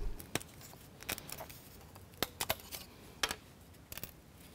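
Light, irregular clicks and taps of a thin laser-cut plywood parts sheet being handled, about seven or eight faint sharp ticks in all.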